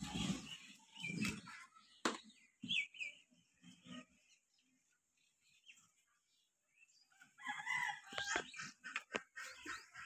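Farmyard animal calls, bird-like cries and clucks in bursts near the start and again in the last few seconds, with a few sharp knocks in between.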